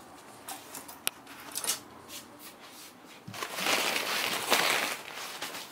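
Light handling clicks, with one sharp click about a second in, then from about three seconds in a couple of seconds of rustling as a black fabric item is pulled out of a cardboard box.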